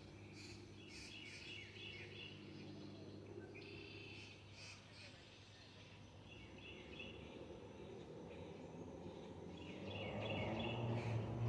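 Birds chirping in short repeated bursts over a steady low hum. About ten seconds in, a louder rushing noise comes up.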